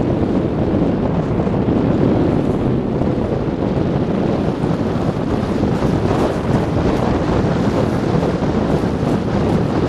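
Wind rushing over the microphone on a fast downhill sled ride, mixed with the hiss and rumble of the sled's runners on packed snow. The noise is loud and steady throughout.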